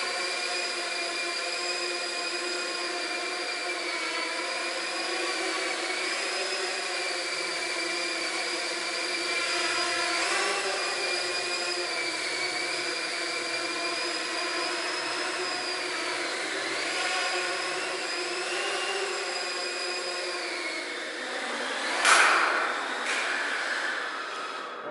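Small multirotor drone in flight, its motors and propellers making a steady high whine of several stacked tones that waver slightly in pitch as it manoeuvres. Near the end the whine dies away and a short loud clatter follows as the drone comes down.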